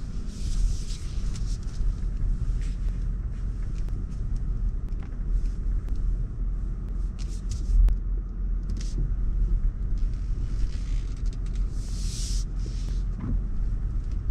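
Land Rover driving slowly off-road: a steady low engine and tyre rumble, with a thump just past halfway and scattered brief bursts of hiss, the strongest near the end.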